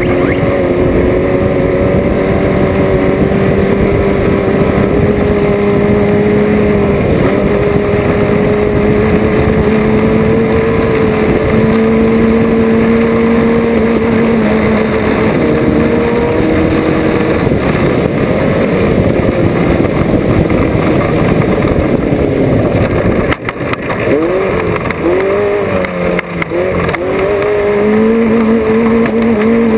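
Off-road race vehicle's engine running hard under load, its pitch climbing slowly and stepping down now and then. About three quarters of the way in it drops off with a few knocks, then revs up and down in quick swoops before settling back to a steady pull.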